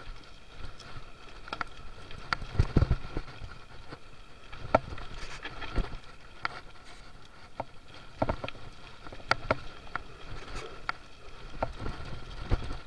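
Mountain bike rolling down a rough dirt singletrack: irregular clatter and knocks from the bike's chain and frame as it jolts over roots and rocks, over a steady rush of tyre and wind noise.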